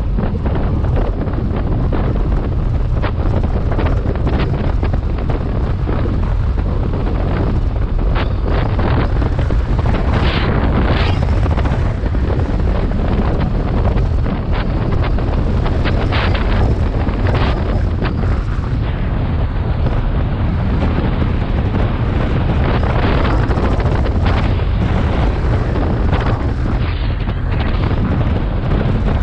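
Heavy wind buffeting the microphone of a moving motorcycle, a BMW R 1250 GS, with its boxer-twin engine running underneath; the rush swells briefly a few times.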